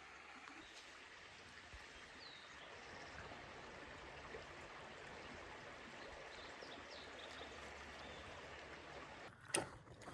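Shallow mountain creek running over rocks: a steady, gentle rush of water. A single sharp knock near the end.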